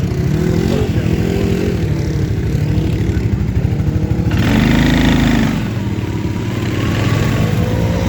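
ATV engine revving up and down as it is driven through mud, the pitch rising and falling. A louder, harsher stretch of about a second comes around the middle.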